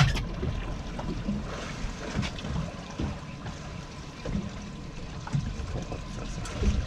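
Sea water lapping and sloshing against the hull of a small motorboat, with a sharp click right at the start and a few faint knocks.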